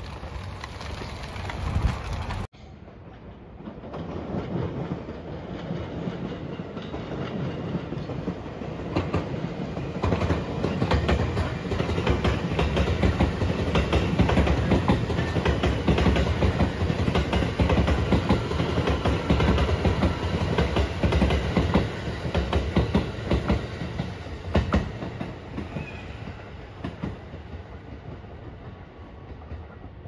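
JR West 223-series electric train passing close by. Its wheels clatter over the rail joints; the sound swells, is loudest midway, then fades as the train moves away. The opening two seconds hold a different noise that cuts off abruptly.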